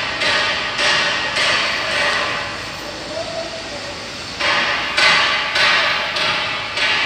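Construction hammering: repeated hammer blows, about two a second, each ringing out with an echo. The blows stop for about two seconds in the middle, then start again.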